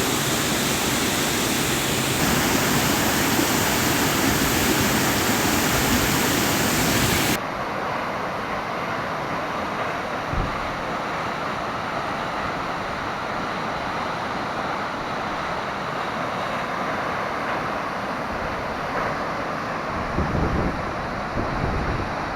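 Waterfall rushing: a steady, dense hiss of falling water. About seven seconds in it turns abruptly duller and a little quieter, and a few low wind buffets hit the microphone near the end.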